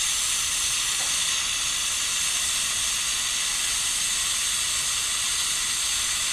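Oxygen–MAP gas torch flame hissing steadily as it plays on a steel rebar, heating it to bend.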